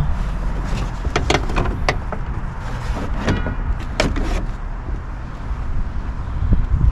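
Plastic trim-panel clips clicking and snapping as the panel is pried loose, several sharp clicks over a steady low rumble.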